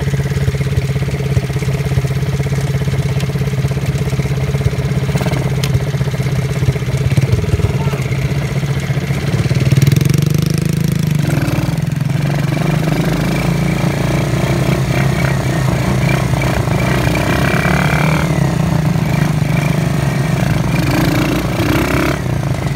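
Small utility ATV engines running, a steady single-engine note with a brief rise in revs about ten seconds in as one quad pulls away.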